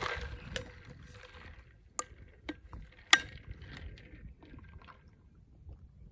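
Ice cubes clinking against a glass as a lemon and mineral-water drink is stirred: a few sharp, separate clinks in the first three seconds or so, with a faint liquid sound.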